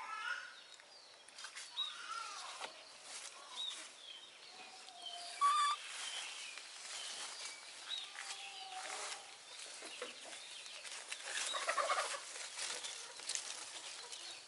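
Scattered short animal calls, chirps and clucks, over a quiet outdoor background, with a louder call about five seconds in and another burst of calls near the twelfth second.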